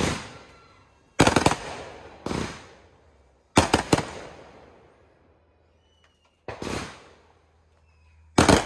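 Aerial firework shells bursting overhead: sharp bangs every second or two, three in quick succession about three and a half seconds in, each dying away in a long rolling echo.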